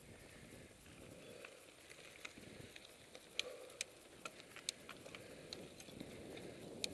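Mountain bike riding a sandy dirt trail: a low rumble of the tyres on the ground with sharp rattles and clicks from the bike as it goes over bumps, several louder ones in the second half.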